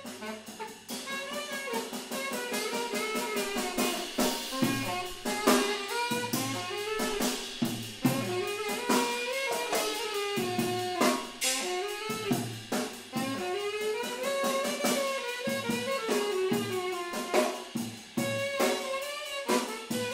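Live jazz: a wind instrument plays a wandering melodic line with sliding pitches over loose, irregular drum-kit hits.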